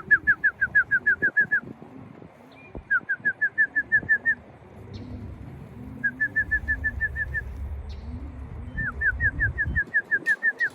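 Racing pigeons cooing at the loft in a steady low string, under four quick runs of high, downslurred whistled notes of about eight a second, each run lasting a second or two.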